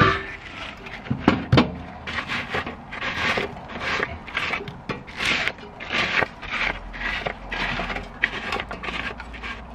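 Gloved hand scraping and sweeping ash and charcoal bits across the metal bowl of a kettle barbecue, in repeated strokes about twice a second. There are a few sharper knocks in the first couple of seconds.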